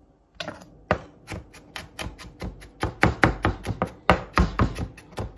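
Knife finely chopping garlic on a cutting board: a quick, uneven run of sharp knocks, several a second, starting about half a second in.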